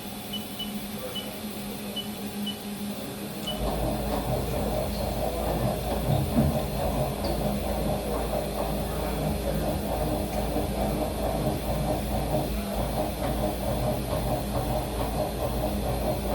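Haas VF-2 CNC vertical machining center under power: a few short electronic beeps, then about three and a half seconds in something on the machine starts up and runs with a steady hum and hiss.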